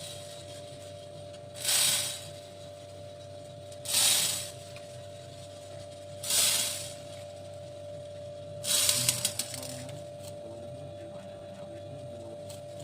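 Beads being poured, each pour a short hissing rattle: three brief pours about two seconds apart, then a longer pour with separate clicks of single beads about nine seconds in, and another starting near the end. A steady hum sits underneath.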